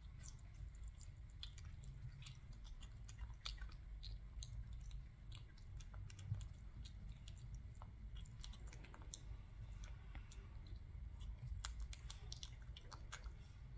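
British shorthair kitten chewing chopped raw meat from a plate: faint, irregular small wet clicks of its teeth and tongue.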